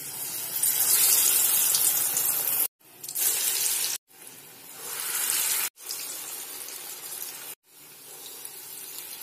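Urad dal vada batter sizzling as it is dropped into hot oil for deep-frying: a loud, steady hiss, broken by four brief gaps of silence and fainter in the last few seconds.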